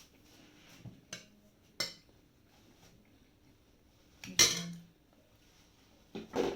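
Spoon clinking against a plate while eating: a few separate clinks, the loudest a little past halfway.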